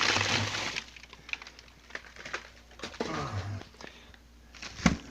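Plastic bags of frozen food and ice crinkling and clicking as they are handled and lifted out of a chest freezer, loudest in the first second, with a single sharp knock near the end.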